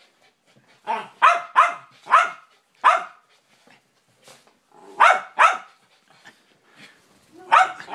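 Small white terriers barking: about nine short, sharp barks in loose bunches, with a couple of fainter yips between them.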